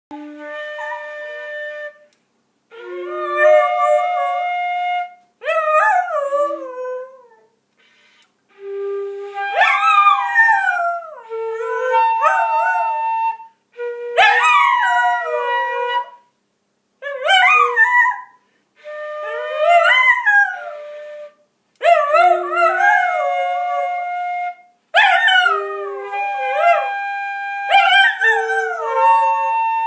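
Concert flute playing held notes of scales while a dachshund howls along. The howls slide up and down in pitch over the flute's steady tones, in a dozen or so phrases with short pauses between.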